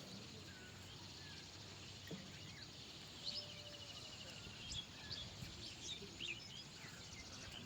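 Birds chirping over a faint, steady outdoor hiss, with a rapid buzzing trill about three seconds in.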